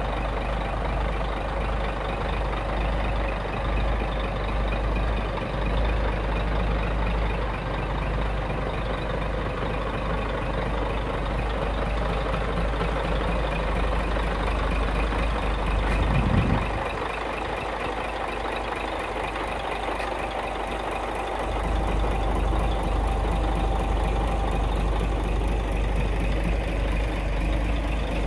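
Scania tractor unit's diesel engine idling steadily. The lowest part of the rumble drops away for several seconds a little past the middle, then returns.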